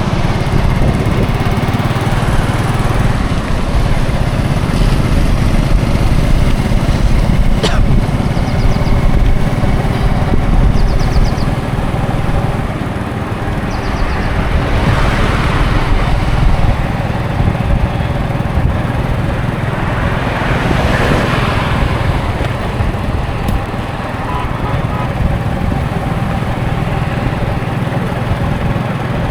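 Highway traffic: a steady low engine rumble with road noise, swelling broadly twice, about halfway through and again a few seconds later, as vehicles pass.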